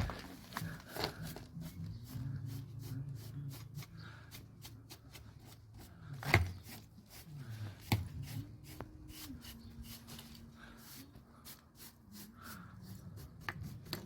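Old cloth rag wiping patination oil onto lead flashing: quick rubbing and scuffing strokes with a few louder knocks, about six and eight seconds in, over a faint low hum.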